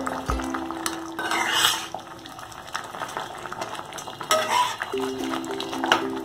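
A flat spatula stirs a thick yogurt fish curry in a kadai, with repeated short scrapes and knocks against the pan.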